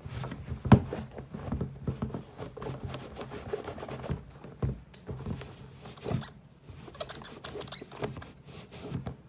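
Irregular scraping and rubbing of a cloth wiping down a sneaker, with scattered light knocks as the shoe is handled. There is one sharp knock about a second in.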